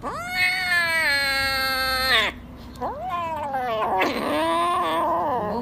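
Grey kitten giving two long, drawn-out meows. The first starts sharply and is held for about two seconds, sinking slightly in pitch before it stops. The second begins about three seconds in, rises, then wavers and falls.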